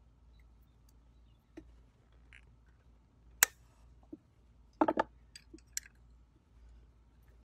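A small open-end wrench on a motorcycle starter motor's cable terminal nut: a few scattered sharp metal clicks as the wrench is fitted and turned, the loudest about three and a half seconds in and a quick cluster about five seconds in.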